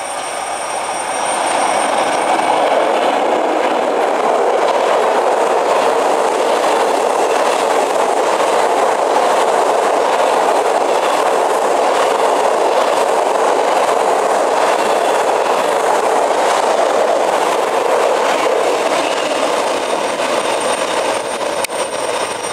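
Freight train of boxcars rolling past close by: a loud, steady noise of steel wheels running on the rails, easing slightly near the end.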